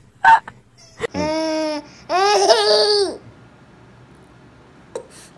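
A baby's voice making two drawn-out vocal sounds about half a second apart, the second one longer and wavering in pitch.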